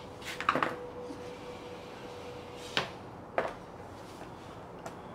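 Painted wooden side-slat panels of a Radio Flyer wagon being handled and flipped over on cardboard: a short clatter of wooden knocks about half a second in, then two single knocks around three seconds in.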